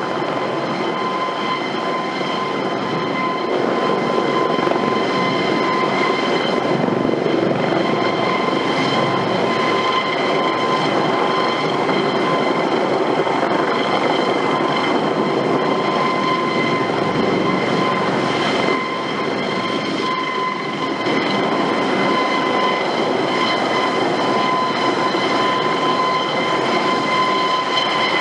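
Eurocopter AS365 Dauphin helicopter with its twin turboshaft engines running: a steady turbine whine made of several high tones over a continuous rushing noise. It dips briefly about two-thirds of the way through.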